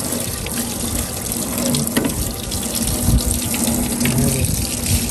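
Water running steadily from a tap and splashing as fish are rinsed under it and dropped into a plastic cooler.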